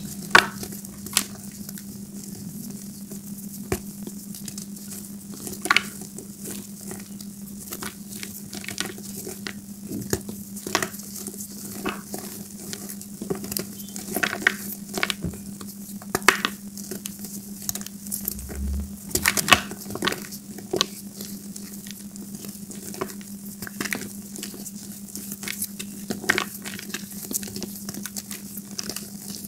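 Gym chalk squeezed and crumbled by hand in a bowl of loose chalk powder and chunks: irregular dry crunches and crackles, some sharper snaps as lumps break.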